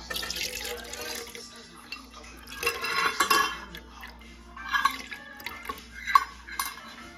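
Almond milk poured from a metal measuring cup into a stainless steel mixing bowl onto raw eggs, splashing in two pours. After that come a few short splashes and drips as more liquid goes in, with a sharp clink about six seconds in.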